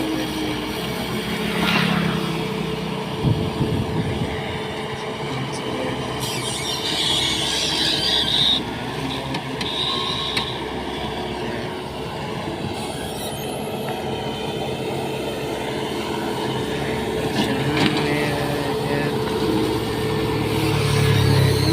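Skid-steer loader's diesel engine running steadily, revving up under load twice, once near the start and once at the end. A few sharp clanks come about three to four seconds in.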